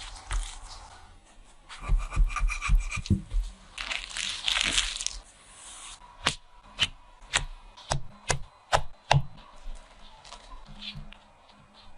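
Kitchen handling noises from food preparation: crackling and crinkling with a brief rustling burst, then a run of sharp taps or clicks, about two a second.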